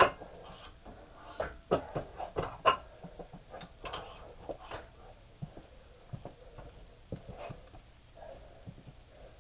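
Weight plates being taken off a barbell: a series of knocks and clanks, dense for about the first five seconds and then thinning out to scattered lighter knocks.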